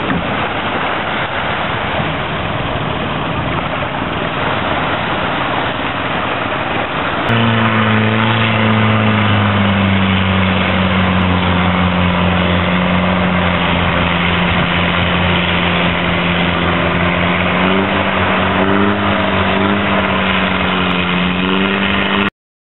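Long-tail boat engine running. For the first seven seconds it is a rough, noisy engine sound. Then it changes abruptly to a steady, even drone of a boat under way at speed, which dips slightly in pitch and rises again near the end before cutting off.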